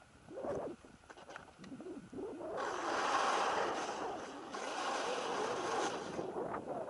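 Skis hissing through snow on a downhill run: a few short swishes in the first two seconds, then a louder steady hiss from about two and a half seconds in that drops away near six seconds.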